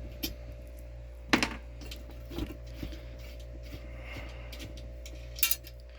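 Scattered light clicks and knocks of small metal parts being handled as nuts are taken off the mounting bolts of a diesel heater's mounting plate, with one sharper knock about a second and a half in. A steady low hum runs underneath.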